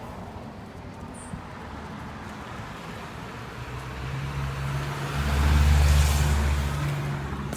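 A motor vehicle driving past: its engine hum and road noise build from about four seconds in, are loudest around six seconds, then fade away.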